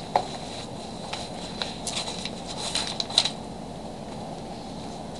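A few scattered light clicks and taps over a steady room hum, stopping a little over three seconds in.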